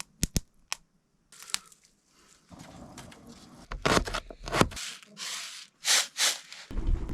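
Crunching and rustling handling noises: a few sharp clicks first, then a run of rough crunching and scraping bursts that grow louder toward the end.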